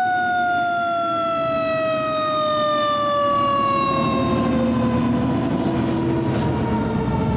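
Fire truck siren winding down, its pitch falling slowly and steadily. The truck's engine rumbles underneath, growing louder in the second half.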